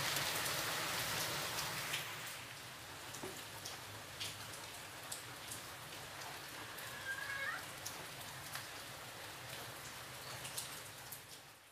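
Hot fat sizzling in a nonstick grill pan: a steady hiss with scattered sharp crackles. It drops quieter after about two seconds, as slices of bread are laid in over the fat.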